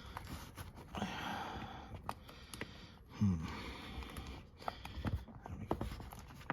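A man breathing hard and giving a short falling grunt of effort while straining to force a rubber boot onto a tow bar arm, with scattered light clicks and knocks of handling.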